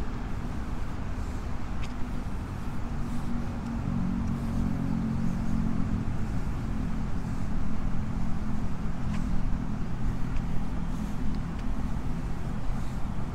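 Low rumble of a motor vehicle's engine running, its hum strongest in the middle and easing off near the end, over steady road-traffic noise.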